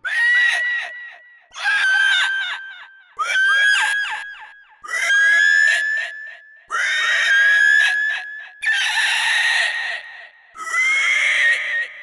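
Dragon screech sound effect: seven shrill, high-pitched screeches in a row, about one every two seconds, each holding one pitch before it tails off. The screech about nine seconds in is rougher and raspier.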